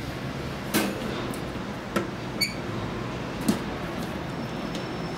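A few light metal clicks as the steel wire legs and latch of a portable suitcase charcoal grill are handled and folded, with a brief metallic ping about two and a half seconds in, over a steady low hum.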